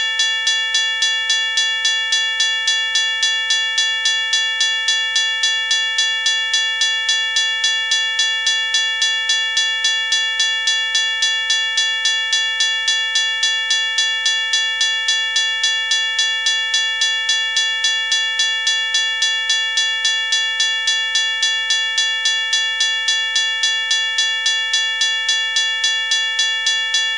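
Safetran Type 1 electronic railroad crossing bell ringing steadily as a fast, evenly spaced series of metallic dings, signalling that the crossing is active.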